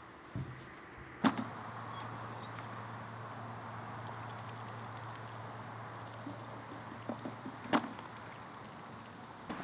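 A steady low hum over an even background hiss, with a sharp click about a second in and another near the end.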